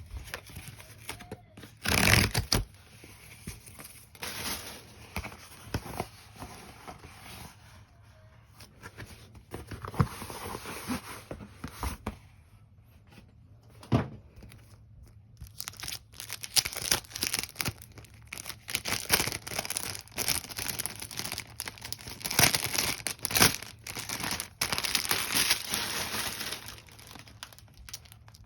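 Pokémon card packaging being torn open and crinkled by hand: irregular tearing, rustling and small clicks, with a loud rip about two seconds in.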